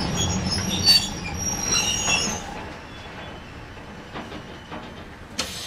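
Tram running on street track: a low rumble with high-pitched squealing from the steel wheels on the rails for the first couple of seconds, then a quieter run with a few light clicks and one sharp knock near the end.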